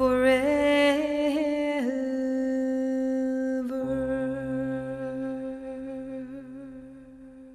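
End of a song on the soundtrack: a wordless hummed note, wavering in pitch for the first two seconds, then held steady and fading out.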